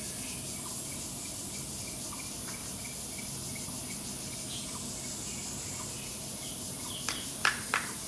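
Steady insect chorus with a high hiss and a faint regular chirp about three times a second. Near the end come three sharp knocks, the loudest sounds.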